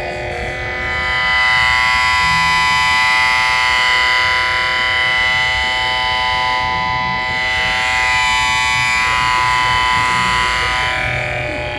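Light flicker from lighting-store lamps and their power supplies, picked up by a small solar panel fed into an audio amplifier: a steady electrical buzzing chord of many tones, growing a little louder a second or so in, with its upper tones shifting now and then.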